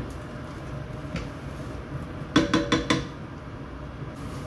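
A wooden spatula knocked four times in quick succession against a metal saucepan, each knock ringing briefly, over a steady low hum.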